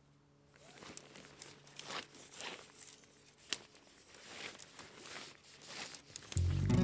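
Rustling and crinkling of synthetic tent fabric being handled while a tent is set up, with one sharp click about halfway through. Music starts loudly near the end.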